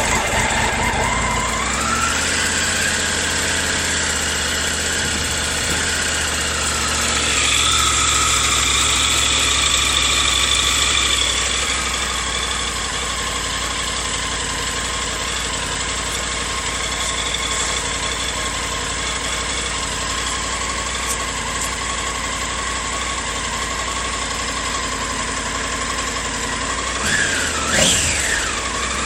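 Triumph Tiger 900 GT's 888 cc inline-triple engine just fired up after an oil change, running to pump oil into the new, empty filter. The idle climbs over the first couple of seconds, runs a little higher and louder from about eight to twelve seconds in, then settles into a steady idle. Near the end the pitch rises and falls quickly once.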